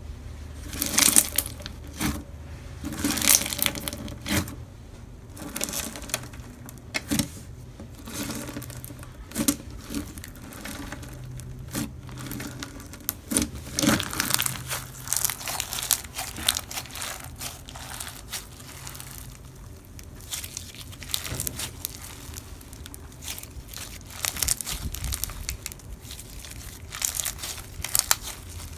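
Slime being squeezed and pressed by hand, giving off irregular crunchy crackles and small pops.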